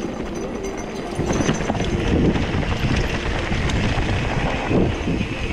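Wind buffeting the microphone over the rumble and rattle of mountain bike tyres rolling on a rocky dirt trail, getting louder about a second in.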